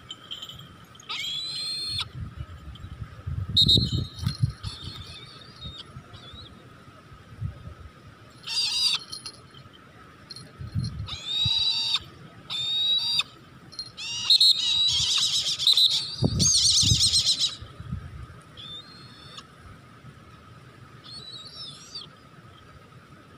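Brahminy kite calling in a series of short, high, bending calls, about a second each, with a longer run of calls about two-thirds of the way through. Low thumps sound under some of the calls.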